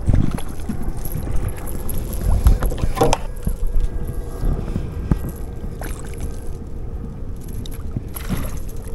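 Wind buffeting the microphone and water lapping at a small fishing boat, with scattered light knocks and a faint steady hum.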